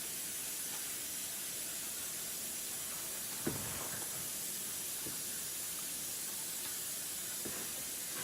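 A steady hiss with a few faint knocks, the sharpest about three and a half seconds in.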